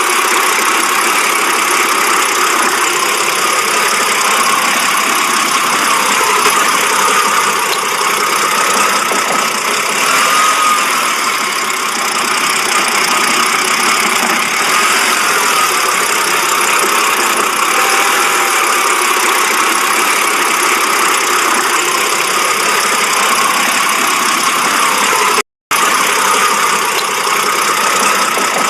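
BMW engine idling with a steady, noisy running sound: the rough idle the car is being checked for. It cuts out briefly near the end.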